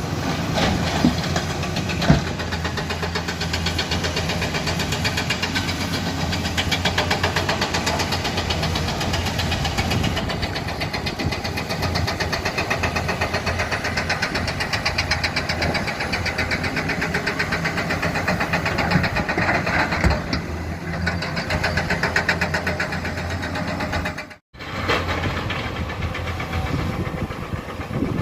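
Komatsu hydraulic excavator's diesel engine running steadily with an even pulsing beat, with a couple of sharp knocks in the first seconds. The sound cuts out for a moment about three-quarters of the way through.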